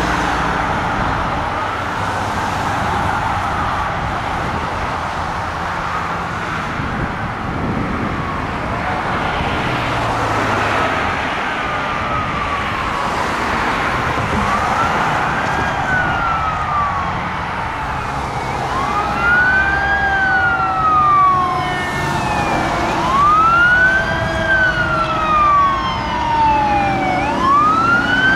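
A fire engine's Federal Signal Q2B mechanical siren winds up quickly and coasts down slowly in repeated wails about every four seconds. The wails start faint and grow louder as the truck approaches, over steady traffic noise.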